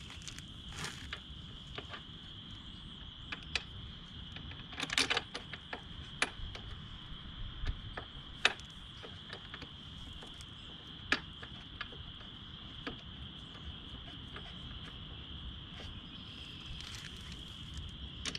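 Faint, scattered clicks and taps of metal parts being handled as a crash bar is fitted to a motorcycle frame by hand, over a steady high-pitched drone.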